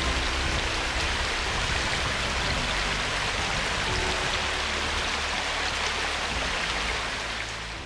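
Steady, even rushing of water, like heavy rain or a fast stream close to the microphone, fading out near the end.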